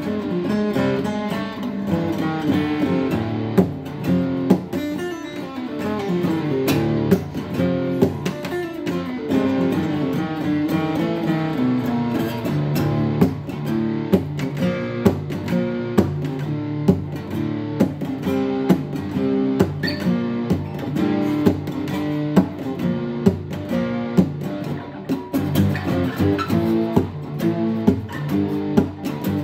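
Acoustic guitar played solo, a steady stream of plucked notes and chords with descending runs of single notes partway through.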